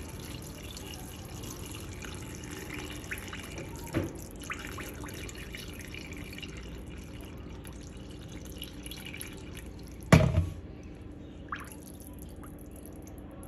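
Hot water poured from a kettle onto an upturned plate in a pot of stuffed vine leaves, a steady splashing pour filling the pot. A single loud knock comes about ten seconds in.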